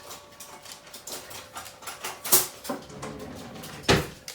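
Scattered small clicks and knocks of a knife and a peanut butter jar being handled on a tabletop, with two sharper knocks, one a little past two seconds in and one near the end.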